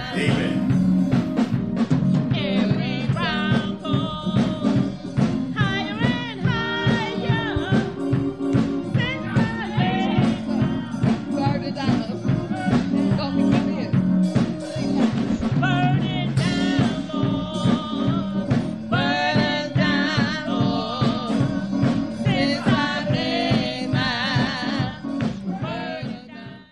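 A song with a singing voice over a steady beat, cutting off suddenly at the end.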